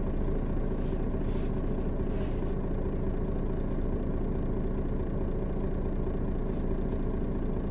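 Setra S 315 NF city bus's diesel engine running steadily at an even note, with a few faint short hisses of air about one and two seconds in.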